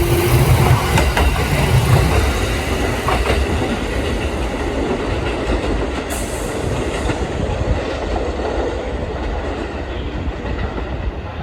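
Kintetsu 2430-series and 1422-series electric train running on the rails, wheels clicking over rail joints in the first few seconds, with the noise gradually dying down.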